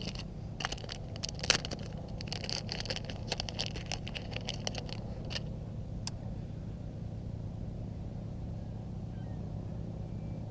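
Small clicks and ticks of fishing tackle being handled, a 1/4 ounce bullet weight and hook being threaded onto the line, over a steady low hum; the clicks die away about six seconds in.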